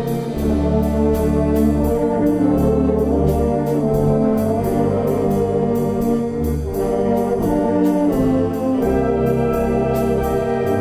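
Brass-led wind band playing sustained chords over low bass notes, with a steady light percussion beat ticking through.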